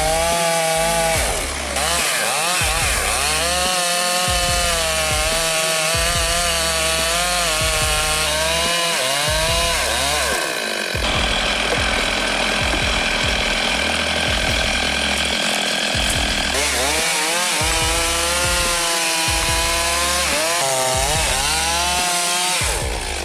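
Chainsaw revving up and down as it cuts into a tree, holding a steady high pitch for several seconds near the middle. Background music with a pulsing bass runs underneath.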